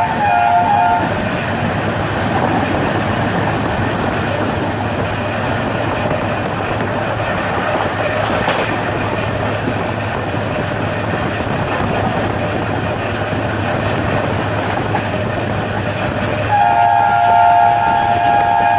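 Diesel locomotive horn sounding a chord of several tones, which cuts off about a second in, then a moving train running with steady rail noise. The horn sounds again near the end and holds.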